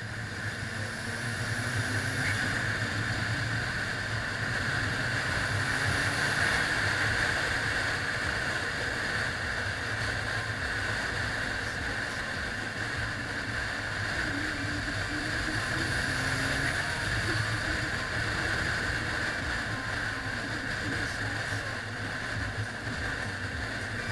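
Car driving at speed, heard through a camera mounted outside on its body: a steady rush of wind over the microphone, with engine and tyre noise underneath.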